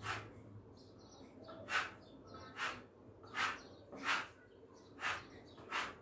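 Hand spatula scraping texture paint across a wall in short strokes, about seven swipes, roughly one every second.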